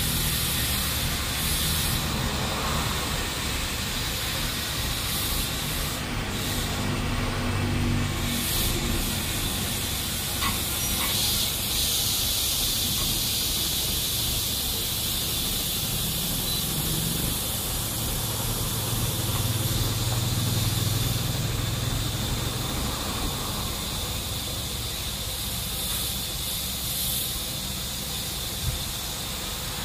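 Compressed air hissing steadily from an air hose chuck as a large JCB tyre is inflated on its rim.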